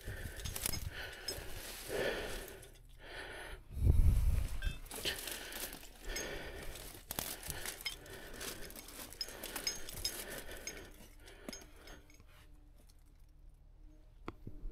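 Dry, woody brush crackling and snapping as a person pushes through it on foot, with light metallic clinks and a loud low thump about four seconds in.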